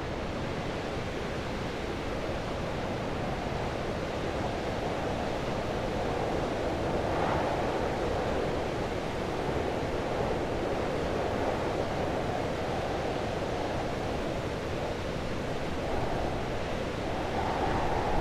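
Heavy wind blowing, a steady rush that swells and eases in slow gusts.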